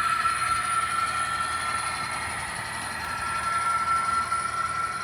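HO-scale model train running on layout track: a steady high whine over a continuous rolling noise, easing off slightly toward the end.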